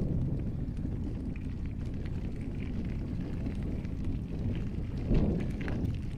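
Wind buffeting the microphone of a handlebar-mounted action camera, a steady low rumble with small clicks and rattles, and a louder knock about five seconds in.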